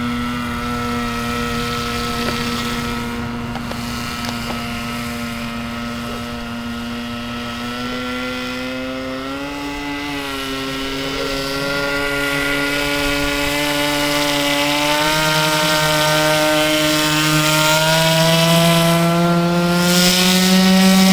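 Radio-controlled nitro boat's small two-stroke glow engine running at high revs, a steady high-pitched buzz. Its pitch climbs a little in the second half and it grows louder near the end as the boat speeds closer.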